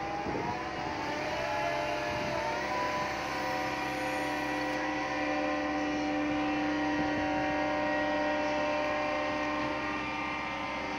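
Menzi Muck walking excavator running, its diesel engine and hydraulics giving a steady whine. The whine wavers in pitch for the first few seconds as the legs and boom move, then holds steady.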